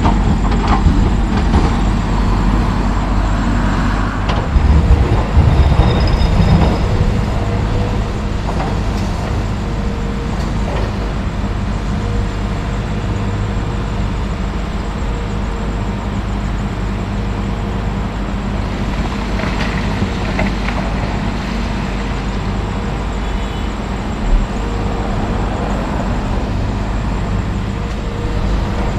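Heavy diesel equipment at work: a John Deere excavator and a Western Star 4900 tri-drive dump truck running steadily while rock is loaded into the steel dump box. There is a louder heavy rumble about four to seven seconds in, scattered knocks later, and one sharp knock near the end.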